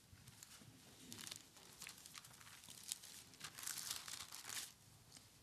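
Thin Bible pages being leafed through and turned, a faint paper rustle in several soft bursts, busiest in the second half.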